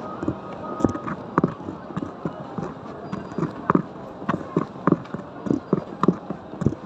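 Footsteps at a steady walking pace, about two a second, close to the microphone.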